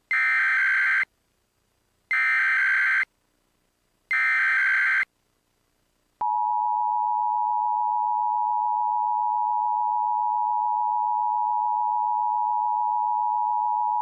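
Emergency Alert System SAME header: three short bursts of warbling digital data tones, about a second each with a second's gap between them. Then the EAS two-tone attention signal (853 and 960 Hz) sounds steadily for about eight seconds and cuts off, the tone that announces an emergency message.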